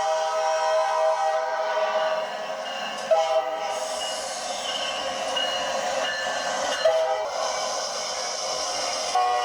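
Train horn sounding a series of long blasts of several steady tones together. A new blast starts sharply about three seconds in and another about seven seconds in, with the hiss of the moving train underneath.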